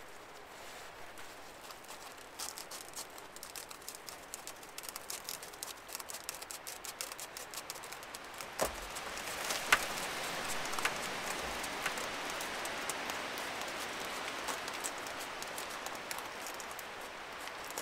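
Crackling and fine scraping clicks while tinder and kindling are being worked to start a campfire. A sharp knock comes about nine seconds in, and after it the crackling grows denser and louder.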